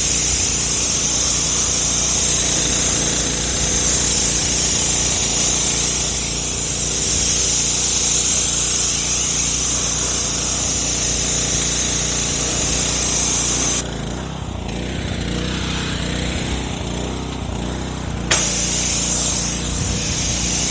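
Pressure washer spraying water up through a wheeled undercarriage cleaner's nozzles: a steady hiss of spray over the machine's running drone. About two-thirds of the way through, the spray stops for several seconds while the machine keeps running, then starts again with a sharp click.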